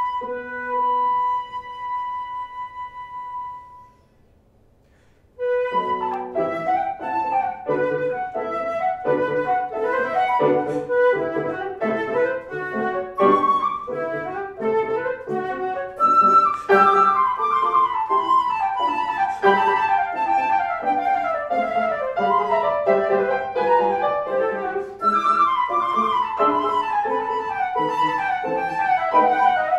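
Flute with piano accompaniment playing classical music. A held flute note fades into a short near-silent pause a few seconds in, then flute and piano resume with fast running passages, including several falling runs.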